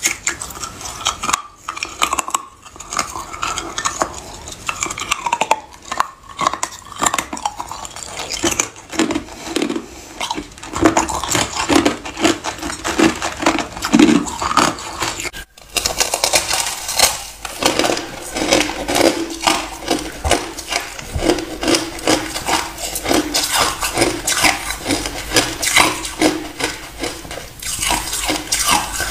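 Ice chunks bitten and chewed close to the microphone: a rapid series of crisp cracks and crunches. About halfway through, after a brief break, the crunching becomes denser and more continuous.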